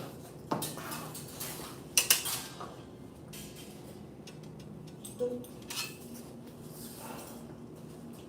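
Pair of Chinese butterfly knives clinking against each other during form practice: several sharp clinks at irregular intervals, the loudest a quick double clink about two seconds in.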